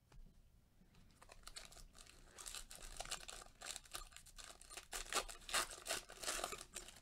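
Foil wrapper of a basketball trading-card pack being torn open and crinkled by gloved hands. The rapid crackling starts about a second in and gets louder as the wrapper is pulled apart.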